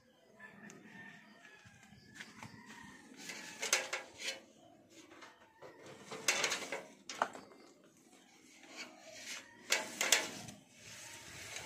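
Leaves and branches of a kamias (bilimbi) tree rustling and rubbing in three short bursts, a few seconds apart, as the branches are handled.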